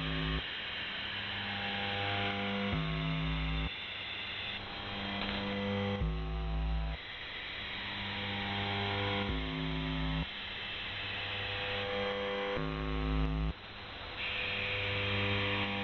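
Shortwave radio reception of the UVB-76 frequency, 4625 kHz: hiss overlaid with changing blocks of buzzing, pitched tones and low hum, in a pattern that repeats about every three seconds.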